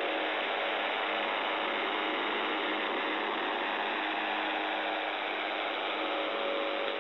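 Shortwave radio static from a receiver tuned to 4625 kHz, the UVB-76 'Buzzer' frequency: a steady hiss with faint steady low tones underneath that grow clearer near the end.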